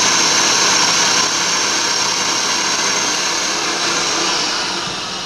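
Spindle of a Prototrak TRM CNC bed mill running, a steady motor whine with a strong high hiss, slowly dying away from about a second in.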